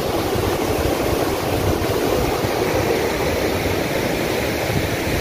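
Floodwater from an overflowing village tank rushing over its surplus weir and rocks: a steady, even rush of water.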